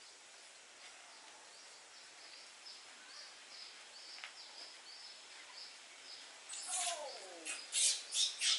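Small birds chirping over and over with short, high notes. Near the end, louder scraping or rustling noises come in several quick bursts, along with a single falling call.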